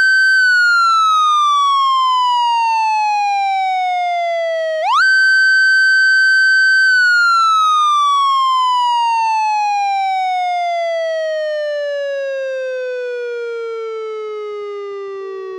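Police motorcycle siren wailing: it holds a high pitch, then slowly falls. About five seconds in it quickly winds back up, holds again, and then slides down in a long, slow fall to a low pitch.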